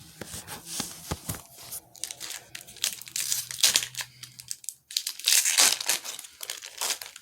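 A Magic: The Gathering booster pack's wrapper crinkling and tearing as it is opened, in irregular rustles and crackles.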